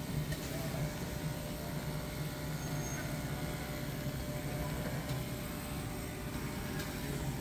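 Automatic CNC fabric-cutting machine with a vacuum table running: a steady low mechanical hum.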